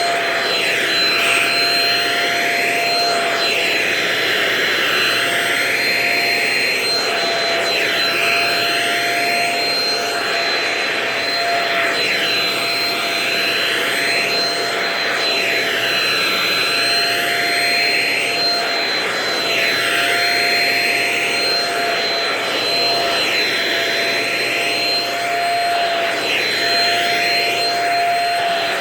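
Vacuum cleaner running steadily with a constant motor whine, its rushing air note swelling and shifting about every two seconds as the nozzle is worked back and forth over couch upholstery.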